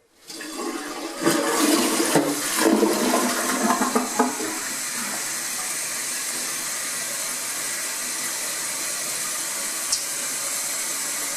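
American Standard toilet being flushed: water rushes and gurgles into the bowl for about four seconds, then gives way to a steady hiss as the newly installed fill valve refills the tank.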